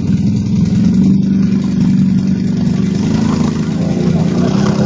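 ATV engine running loud at fairly steady revs, its pitch wavering slightly near the end.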